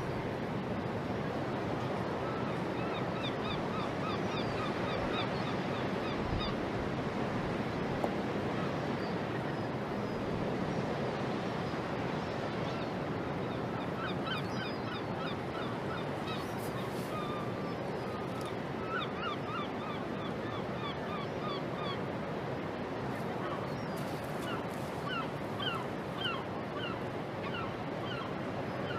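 Birds calling in quick runs of short, high chirping notes, several a second, over a steady wash of harbour water noise.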